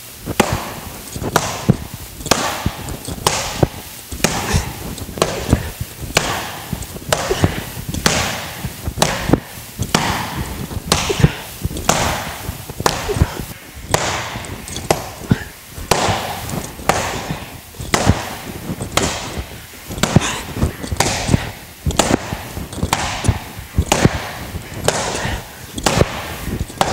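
A steel bar striking a hanging heavy bag hard again and again, about one blow a second, each a sharp smack with a short rattling tail.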